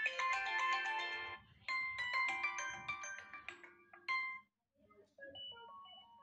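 Vivo Y31 smartphone ringtones previewed one after another through the phone's speaker. Three short melodies play, each stopping suddenly as the next is chosen, and the third is quieter.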